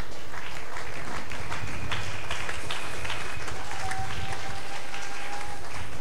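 A congregation clapping, a steady patter of many hands.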